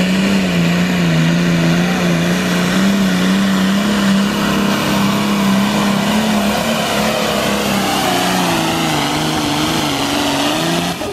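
Pulling tractor's diesel engine running hard at high revs under load during a pull. Its pitch holds steady with a slight waver.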